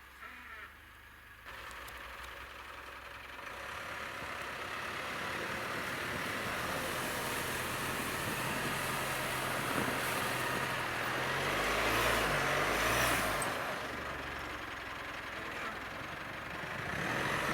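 Mitsubishi Pajero Sport on the move: engine and tyre noise set in about a second and a half in and build steadily, louder about twelve seconds in.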